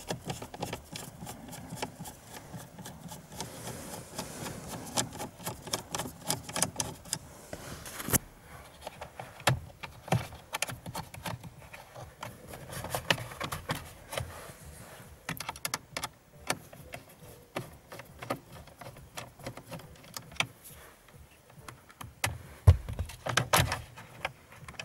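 Irregular small clicks, taps and rattles of hand tools and plastic car-interior parts being handled, with a louder knock near the end.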